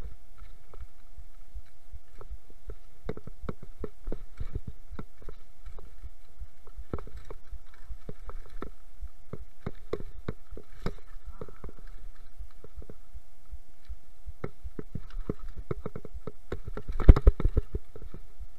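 Mountain bike clattering and rattling down a rough, rocky trail: an irregular stream of knocks from the frame and wheels hitting stones and roots. A louder burst of heavy impacts comes about 17 seconds in.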